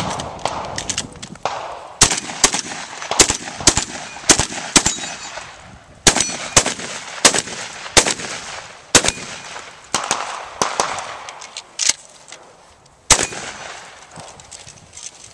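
Shotgun firing a rapid string of about fifteen shots, often in quick pairs about half a second apart, with short pauses between the pairs.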